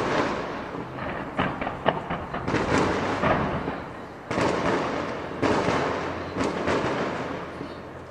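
Fireworks display: a rapid series of bangs and crackles, with the biggest booms at the start and about two and a half, four and five and a half seconds in, each trailing off in a rolling echo.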